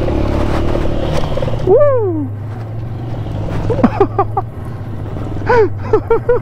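Aveta RangerMax Explorer 130 motorcycle engine running steadily while riding a dirt and gravel track. Several loud wordless whoops from a person are heard over it: one about two seconds in that falls in pitch, then a few short ones near four seconds and in the last second and a half.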